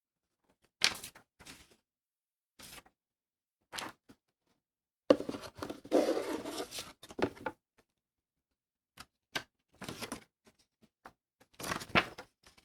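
Unboxing handling sounds of packaging: scattered short knocks and scrapes, with a longer stretch of rustling packaging from about five seconds in, then a couple of sharp clicks and more handling near the end.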